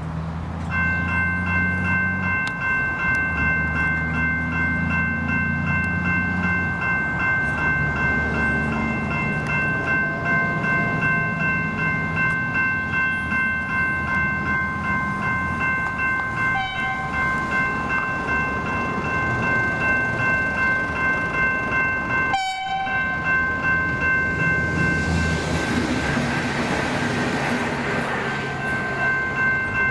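Railway level crossing bell ringing steadily and rapidly as the crossing activates, with a low drone in the first several seconds. Near the end a passenger train passes over the crossing, its wheels adding a loud rushing noise under the bell.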